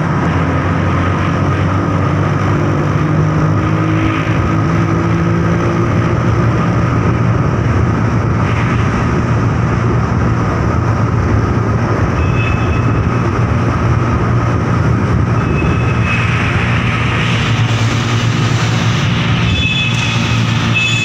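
Steady engine and road noise of a motorcycle riding through a road tunnel.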